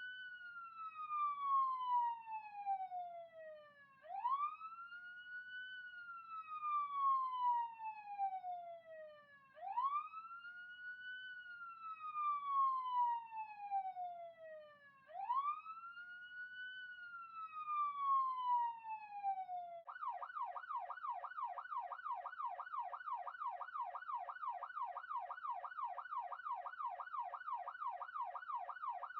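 Police siren in wail mode, its pitch rising quickly and falling slowly about every five and a half seconds, four times. About two-thirds of the way in it switches to a fast yelp of about three sweeps a second, then goes back to the wail at the very end.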